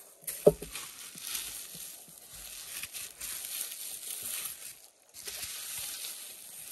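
Plastic bubble wrap crinkling and rustling as hands unwrap a clock, with a single sharp knock about half a second in and a brief pause shortly before the end.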